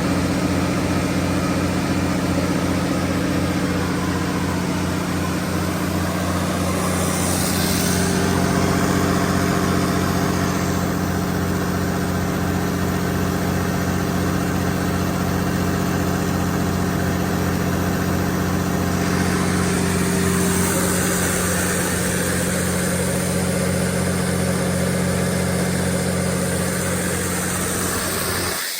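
Cummins KTA19-G4 inline-six turbocharged diesel engine of a 500 kW generator set running at a steady speed, a constant, even engine note.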